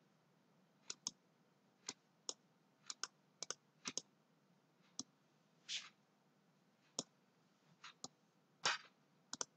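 Computer mouse buttons clicking faintly: many short, separate clicks at irregular spacing, some in quick pairs.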